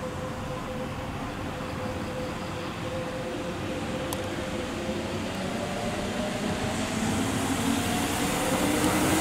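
Kintetsu electric train approaching a station platform, its running noise growing steadily louder, with a faint whine and a hiss building toward the end.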